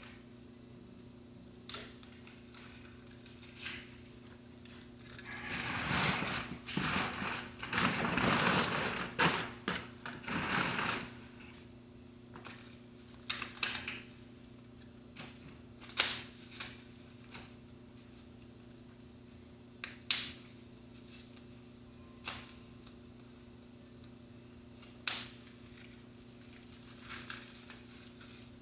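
Hand work on a bicycle during assembly: scattered clicks and knocks of tools and parts being handled. About five seconds in there is a louder stretch of rustling and clattering lasting several seconds.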